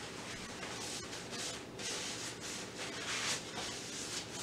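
Dried parsley flakes shaken from a small spice jar over a roast in a crock pot: a few soft, faint rustling shakes.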